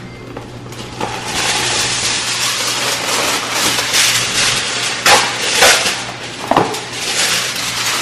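Aluminium foil being crinkled and crimped around the rim of a metal baking pan: dense crackling that starts about a second in, with a few louder crackles past the middle, over a low steady hum.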